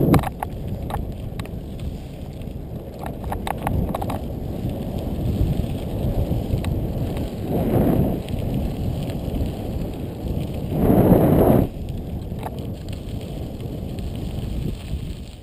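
Mountain bike rolling along a dirt trail: tyres running over loose dirt and gravel under a steady rush of wind on the microphone. Clusters of sharp rattling clicks come from the bike in the first few seconds, and there are two louder swells of rushing noise, about eight and eleven seconds in.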